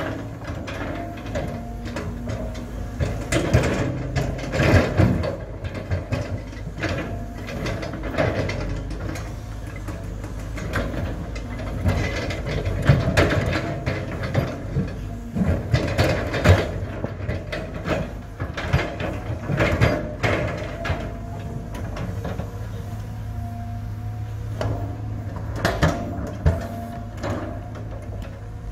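Cat 320 hydraulic excavator's diesel engine running steadily while its bucket digs into rocky soil, with irregular knocks and scrapes of stones against the steel bucket.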